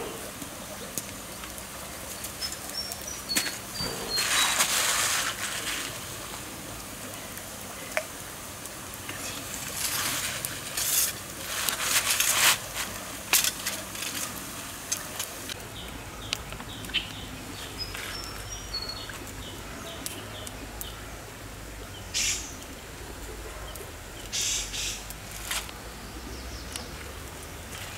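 Outdoor ambience beside a stream: a steady background hiss with several bursts of rustling and a few sharp clicks, and two short runs of high bird chirps.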